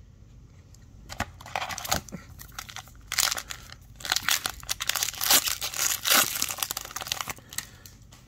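Foil wrapper of an Upper Deck Series 2 hockey card pack crinkling and tearing as it is opened by hand, a run of crackles that is loudest in the middle.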